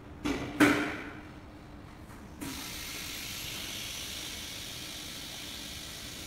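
Two sharp knocks within the first second, then a steady hiss starts about two and a half seconds in and keeps going.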